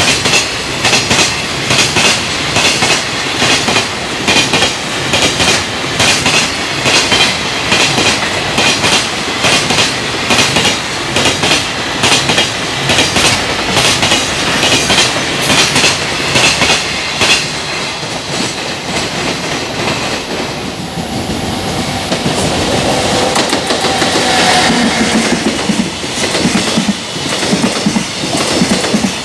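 Wheels of a long container freight train clattering over the rail joints as it passes at speed, in a quick, even clickety-clack. About two-thirds of the way in the clatter gives way to a smoother, steadier running noise as another container freight train rolls past.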